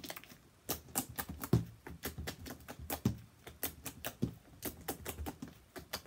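Sticky homemade slime, made stickier with body wash, being kneaded and pressed against a tabletop by hand, giving irregular sticky clicks and crackles several times a second.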